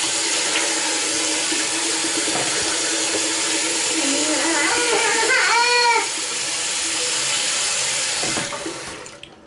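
Warm water running from a bathroom basin tap onto a cloth diaper insert that is rinsed and squeezed by hand under the stream. The flow dies away near the end as the tap is turned off.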